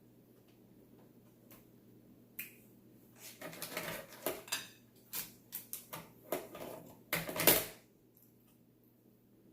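Crackling and clicking of boiled seafood and shells being handled and pulled apart, a run of short, sharp noises starting about two and a half seconds in, loudest shortly before the end.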